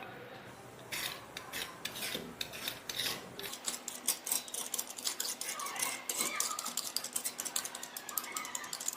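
Rapid, irregular scraping strokes of a hand tool on a metal bicycle frame, starting about a second in.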